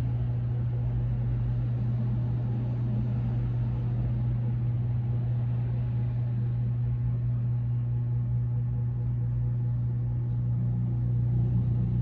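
A steady low hum that holds an even level throughout.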